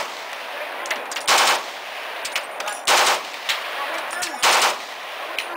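Short bursts of fully automatic gunfire, three bursts about a second and a half apart, with scattered single shots between them.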